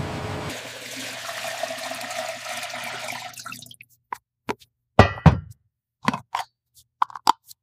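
Liquid poured from a plastic jug into a funnel, a steady rushing pour that fades out after about three seconds, followed by a string of short separate plops and knocks.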